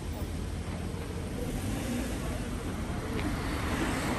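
Road traffic on a town street: cars passing close by, a steady rush of tyre and engine noise that swells a little toward the end.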